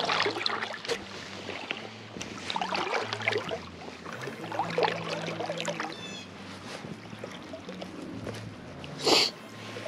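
River current flowing and rippling close by, with scattered small clicks and knocks; a short rush of noise stands out about nine seconds in.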